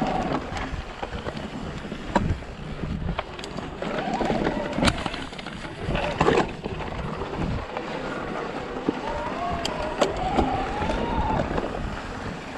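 Shimano Steps E8000 mid-drive e-bike motor whining under full assist, its pitch rising and falling as the rider pedals. Wind rushes over the microphone, and the bike knocks and rattles sharply over rough rock a few times.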